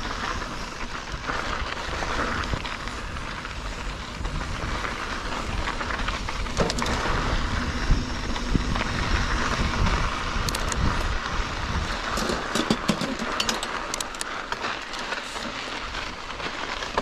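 Mountain bike rolling over a dirt and rock trail: steady tyre and trail noise with the bike rattling. From about ten seconds in there is a run of sharp clicks and knocks as it crosses rougher rocky ground.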